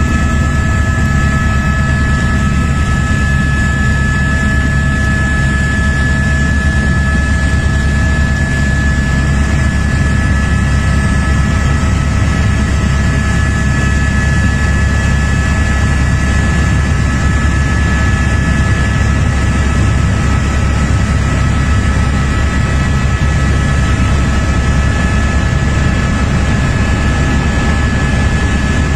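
Helicopter cabin noise in flight: a loud, steady drone of rotor and engine, with a low rumble under a few steady high whining tones.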